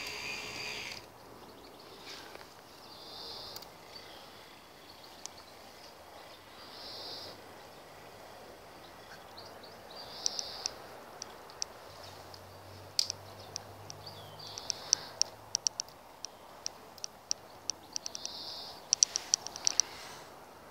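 Small electric motor of a K'NEX swing ride model whining steadily, cutting off about a second in. After that come short hissing patches every few seconds and scattered sharp clicks, which grow denser toward the end.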